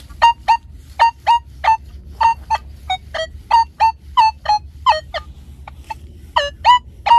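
Nokta Legend metal detector giving short target beeps as its coil sweeps back and forth, about twenty in all and mostly in pairs, some higher-pitched and some lower. The many signals are from ground full of junk targets.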